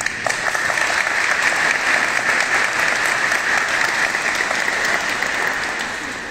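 Audience applauding: many hands clapping, swelling at the start and fading near the end.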